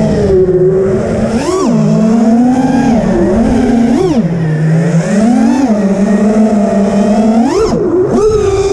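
Five-inch FPV freestyle quadcopter's brushless motors (BrotherHobby R3 2207 2550kv) spinning three-blade 5x4.3 props, heard from the onboard camera: a loud buzzing whine that rises and falls with the throttle. It jumps sharply in pitch several times as the pilot punches the throttle, dipping back after each.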